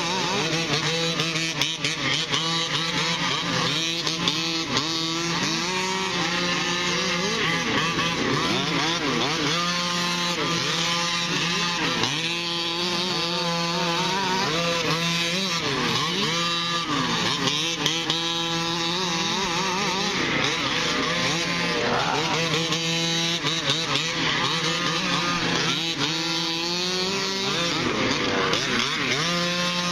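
Several 1/5-scale RC trucks' small two-stroke petrol engines buzzing as they race, their pitches rising and falling as they rev and back off through the corners.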